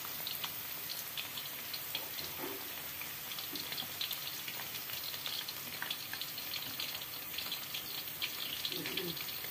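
Chicken pieces deep-frying in hot oil in a wok: a steady sizzle full of small crackles and pops.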